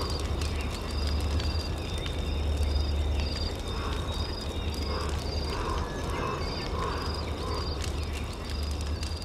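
Outdoor forest ambience of animal calls: runs of short high chirps and repeated lower calls, over a steady low rumble with scattered crackling clicks from flames burning on drums.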